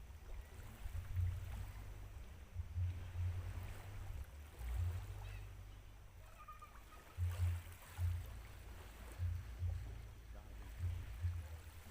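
Wind buffeting the microphone in irregular low gusts, with a faint wash of water behind it.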